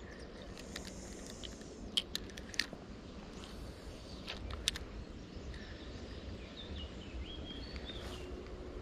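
Quiet outdoor ambience with a low rumble, a few sharp clicks about two seconds in and again around four and a half seconds, and birds chirping near the end.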